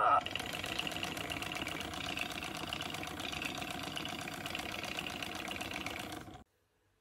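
Steady, finely pulsing buzz from the animatronic FurReal North sabertooth-kitty plush toy as it moves its mouth. It cuts off suddenly about six and a half seconds in.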